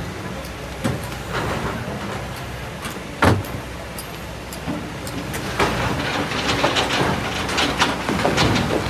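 Kobelco SK200 excavator's diesel engine running steadily while the bucket digs through stony sand, with scattered knocks and clanks of stone. One loud clank comes about a third of the way in, and denser rattling follows in the second half.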